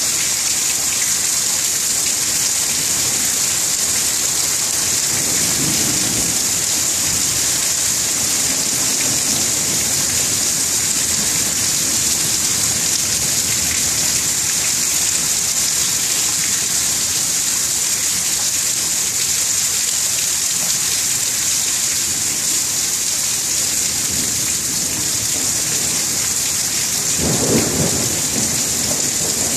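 Thunderstorm: steady rain hiss with thunder, a low rumble about six seconds in and a louder, shorter crack of thunder near the end.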